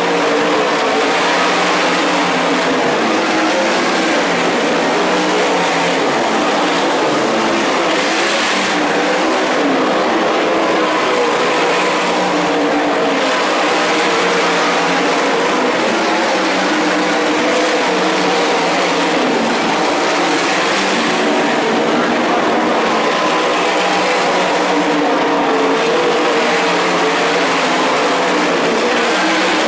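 Several winged 410 sprint cars' V8 engines running hard around a dirt oval, their pitch rising and falling as they pass.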